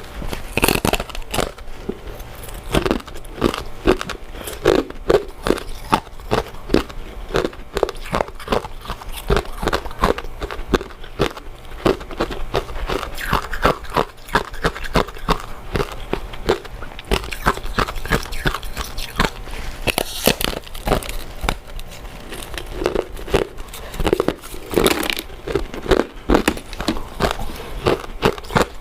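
Close-miked eating sounds: chewing and wet mouth clicks from chewy glutinous rice cakes and mochi. The clicks come in a quick, irregular run throughout.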